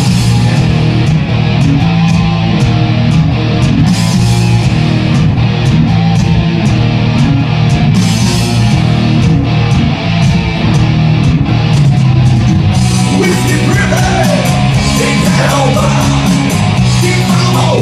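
Live rock band playing loud, with distorted guitar, bass and steady drums and cymbals, picked up by a phone's microphone. A voice comes in over the band about two-thirds of the way through.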